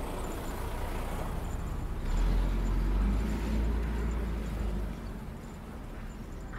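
Road traffic: a motor vehicle passes, its low rumble swelling about two seconds in and fading about three seconds later.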